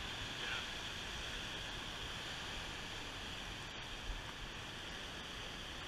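Steady wash of surf breaking on a beach.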